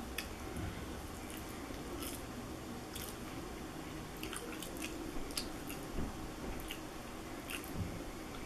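A person chewing and biting waffle fries dipped in ketchup: soft, wet mouth clicks and smacks at irregular intervals over a low, steady room hum.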